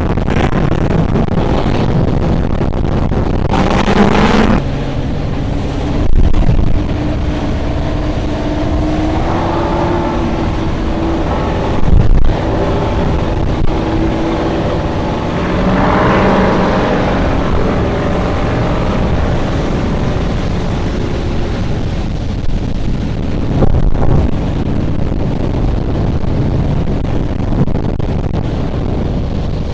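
Donzi ZRC performance powerboat's engines running at speed, buried under heavy wind noise on the camera microphone. The engine pitch rises a couple of times, and there are a few sudden loud thumps.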